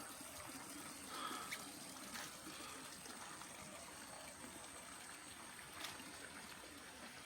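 Faint trickling water, a low, steady running sound with a few soft small sounds over it.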